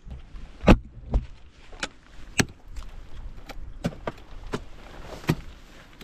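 Unsharpened ice axe picks, and likely crampons, striking and biting into waterfall ice: a series of about eight sharp strikes at an uneven pace, the loudest about a second in.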